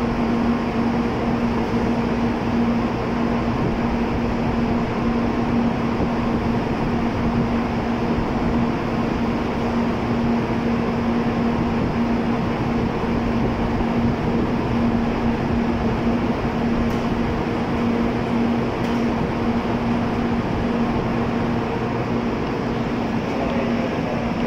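N700A Shinkansen standing at the platform with its onboard equipment running: a steady hum and whir with a constant low drone, unchanging throughout.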